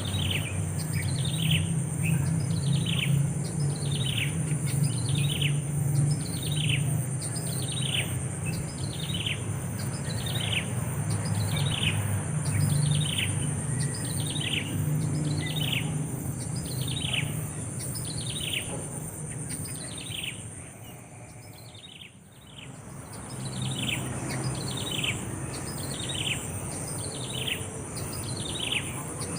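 A bird calling over and over, each call a short falling whistled note, repeated about once every second and a half at an even pace, with a brief break about three quarters of the way through.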